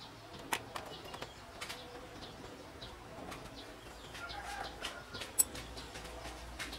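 Light clicks and taps of small acrylic and metal parts being handled, the sharpest about half a second in and again about five and a half seconds in. Birds call in the background, among them a dove cooing.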